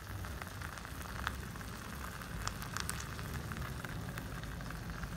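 Egg sizzling as it cooks in the heated tubes of a Grillo-400 four-hole electric egg roll maker, with a few sharp crackles between about one and three seconds in.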